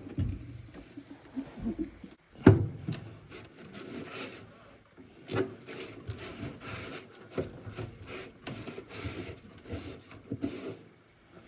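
Irregular scraping and rubbing with scattered knocks, typical of hands and tools working on parts; the loudest knock comes about two and a half seconds in.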